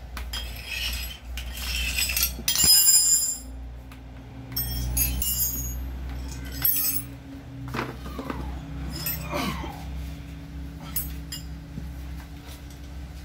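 Metal tools and engine parts clinking and knocking on a workbench during motorcycle engine disassembly, with scattered clicks and a loud jingling clatter about three seconds in.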